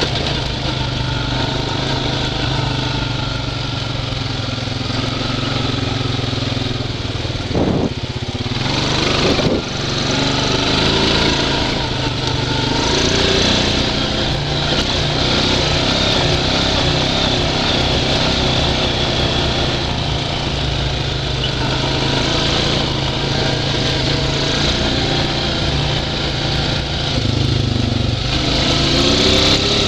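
Honda Rancher 420 ATV's single-cylinder four-stroke engine running steadily as it rides a trail. Two sharp knocks come about eight and nine and a half seconds in, and the revs climb near the end.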